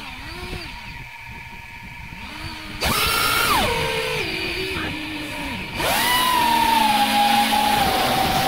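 FPV quadcopter's brushless motors and propellers, heard from a camera mounted on the drone: a low, wavering hum at idle, then about three seconds in a sudden surge to a loud whine as it takes off, stepping down in pitch. A second sharp throttle surge comes about six seconds in.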